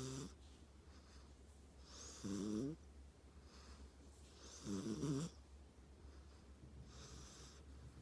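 A sleeping pet snoring softly: three short, rasping snores about two and a half seconds apart, then a fainter breath near the end.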